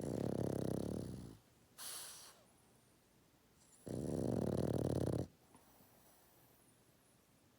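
Sleeping pet snoring: two long snores about four seconds apart, with a short hissing breath between them.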